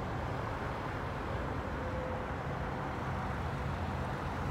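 Steady road traffic noise, the low rumble of vehicle engines and tyres.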